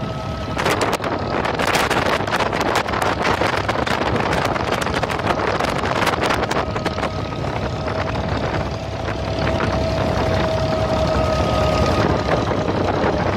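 Abra water taxi's engine running steadily under way, with wind buffeting the microphone. A faint whine rides on the engine note and comes and goes.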